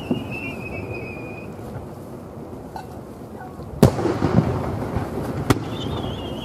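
Aerial firework shells going off. A wavering whistle drops slightly in pitch and fades about a second and a half in. A sharp, loud bang of a shell burst comes near four seconds in, a second bang follows about a second and a half later, and another whistle starts near the end.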